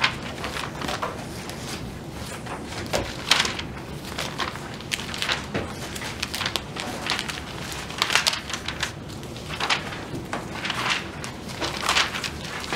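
Pages of a textbook being leafed through: a run of short, irregular papery swishes and rustles.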